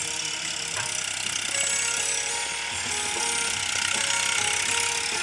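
Music: a melody of held notes that step to a new pitch every second or so, over a dense, bright high end.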